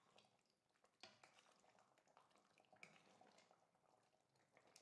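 Near silence, with two very faint ticks, one about a second in and one near the three-second mark.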